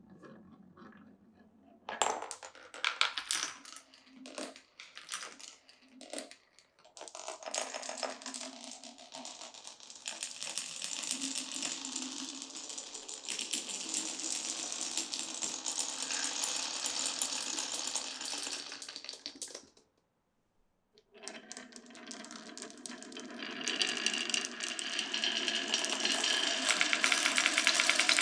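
Glass marbles clicking and clacking as they drop onto a marble run's track pieces, then rolling along the track in a steady run that stops suddenly. After a short pause they roll again, louder toward the end.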